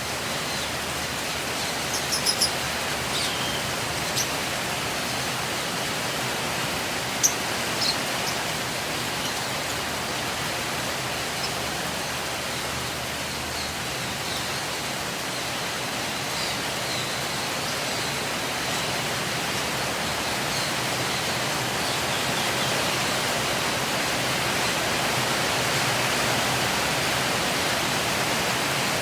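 A steady hiss, growing slightly louder in the second half, with a few brief high chirps from lovebirds about two, seven and eight seconds in.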